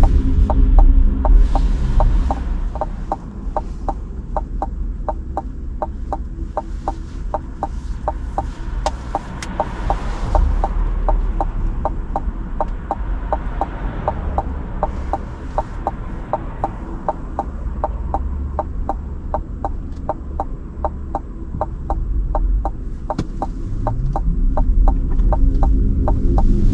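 Cadillac Lyriq's turn-signal indicator ticking steadily, about three clicks a second, while the car waits with its electric drive nearly silent. The drive's tone falls away as the car slows at the start and rises again as it pulls away near the end.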